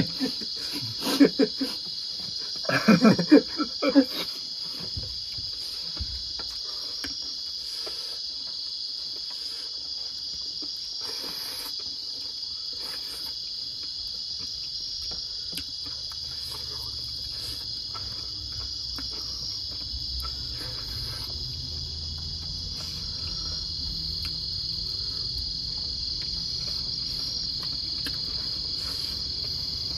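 Steady high trilling of an insect chorus throughout, with faint wet mouth smacks and chewing as two men eat rice and pork by hand. A voice sounds briefly in the first few seconds.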